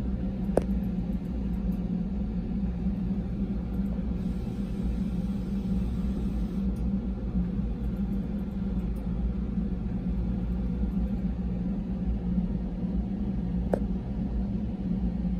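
Steady low hum of a RatRig 3D printer running while it probes the bed, with two short sharp clicks, one just after the start and one near the end.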